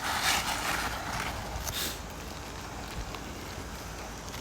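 An asphalt roof shingle being worked loose and pulled out, scraping twice in the first two seconds, over a steady low rumble.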